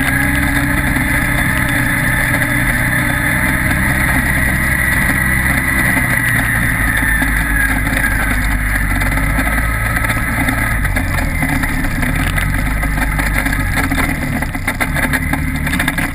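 Side-by-side UTV engine running steadily under way on a dirt road. Its note drops a little about two-thirds of the way through, and knocks and rattles come in near the end.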